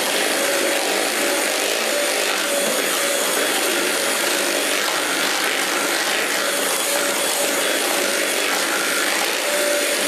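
Handheld electric mixer running steadily at speed, its twin beaters whipping a thick mascarpone and cream mixture in a bowl.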